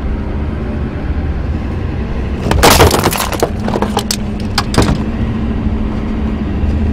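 Steady engine and road rumble inside a moving car. About two and a half seconds in there is a loud burst of rustling and crackling, followed by a few sharp clicks: handling noise from the camera being moved.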